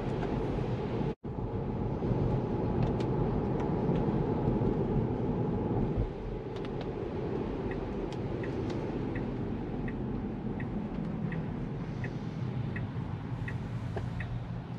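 Cabin noise of a Tesla electric car driving on wet road: a steady rumble of tyres on wet pavement, broken briefly about a second in. From about six seconds in, the turn-signal indicator ticks evenly, about two to three a second, as the car slows for a turn.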